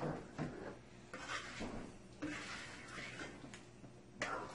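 Long spoon stirring egg and potato curry in a large pot: soft, irregular scrapes and sloshes, a stroke every half-second or so.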